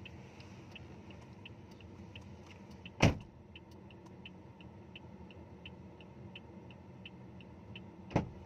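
Car indicator or hazard lights ticking steadily, about three clicks a second, over a low cabin hum. Two heavy thumps break in, one about three seconds in and one near the end.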